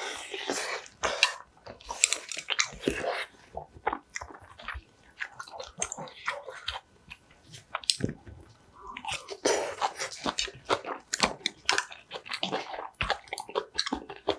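Close-miked eating: a person chewing and crunching mouthfuls of spicy green onion kimchi (pa-kimchi) and rice, with crisp bites and wet mouth sounds coming in quick, irregular succession. There is a short pause just before the eighth second.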